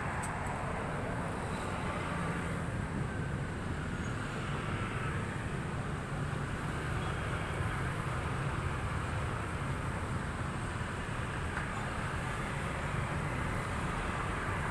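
Steady low background rumble at an even level, with no distinct separate sounds.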